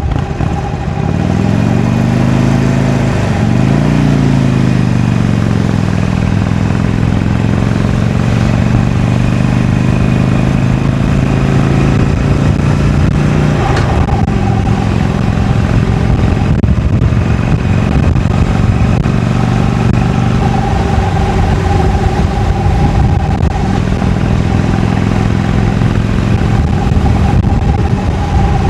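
Harley-Davidson Iron 883's air-cooled 883 cc V-twin with stock exhaust, accelerating under way: the engine note rises, drops at a gear change about three seconds in, climbs again, then runs steadily at road speed. A brief click near the middle.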